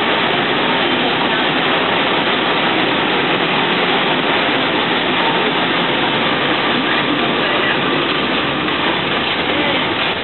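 Steady engine and road noise heard from inside a moving city bus.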